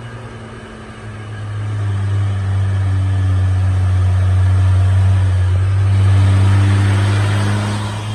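Diesel engine of a heavily loaded sugarcane truck running at a steady low pitch, growing louder as it comes round the bend. Tyre and road noise swells near the end as it passes close by.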